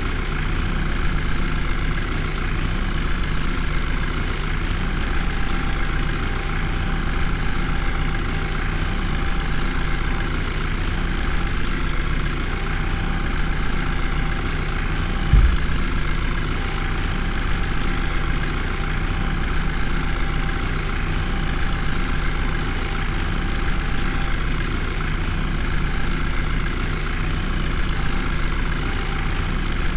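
Heavy diesel engine idling steadily, with one brief low thump about halfway through.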